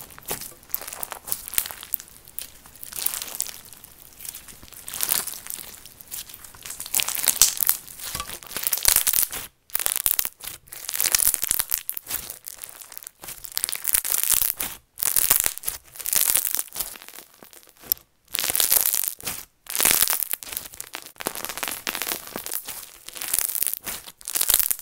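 Hands squeezing, stretching and pressing a crunchy textured slime: crackling, crinkly pops in uneven bursts as it is worked, broken by a few sudden brief silences from about halfway.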